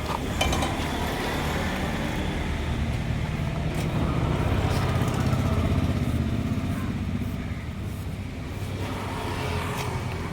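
A vehicle engine running steadily with a rapid, even pulsing, a little louder in the middle, with a few light clicks.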